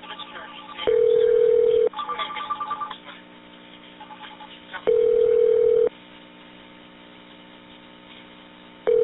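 Telephone line signal tones: a steady low tone lasting about a second comes three times, once every four seconds. Between the first ones there are short bursts of rapidly trilling higher ringing.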